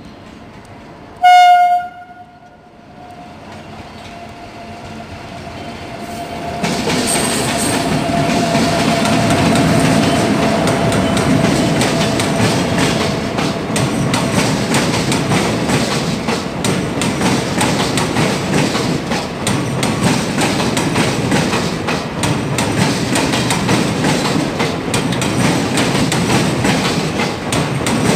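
A train horn gives one short blast about a second in. From about six seconds in a passenger train's coaches run past at speed, their wheels clattering loudly and continuously over the crossover points.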